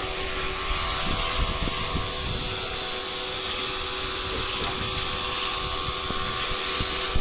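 Electric pressure washer running and spraying water for an air-conditioner cleaning: a steady motor hum under an even hiss.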